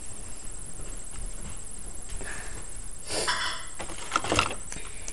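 A few brief rustling and scraping noises, with a louder rasping one about three seconds in and a couple of sharp knocks soon after, as things are handled and moved about.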